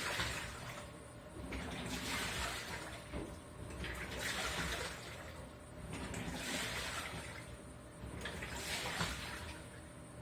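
Hitachi Beat Wash BT7-TV top-loading washing machine agitating: water sloshing in the tub in surges about every two seconds as the wash action turns one way and then the other, over a steady low rumble.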